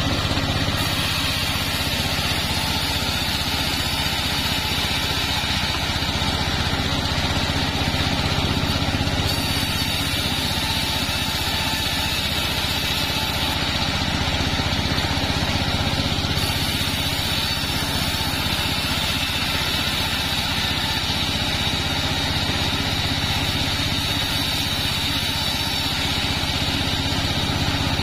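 Engine-driven mobile bandsaw mill running steadily while sawing sengon wood, a constant engine drone.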